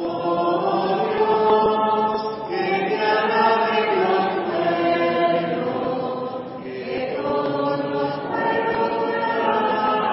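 Voices singing together in church: a slow chant-like melody in held phrases, with short breaths between them about two and a half and six and a half seconds in. It is sung at the point of the Mass where the responsorial psalm follows the first reading.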